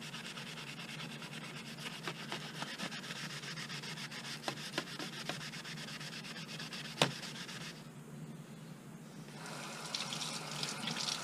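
Green scouring pad scrubbed hard and fast over a yellowed plastic light-bar lens, a steady scratchy rubbing, with a few light clicks and one sharp tap about seven seconds in. The scrubbing stops briefly about eight seconds in, then starts again.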